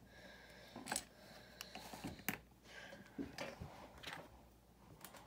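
Faint, scattered clicks and light clatter of small plastic LEGO pieces being picked through and handled while searching for a missing piece.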